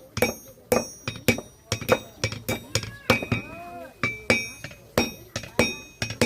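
Blacksmith's hammer striking iron on an anvil, about two blows a second, each with a high metallic ring. The hammering pauses briefly about halfway, then resumes.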